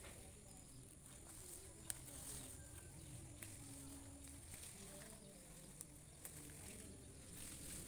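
Near silence: faint outdoor ambience with a steady high drone, like insects, and a few soft clicks.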